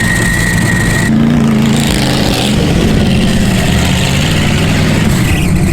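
A motor vehicle's engine running steadily and loudly.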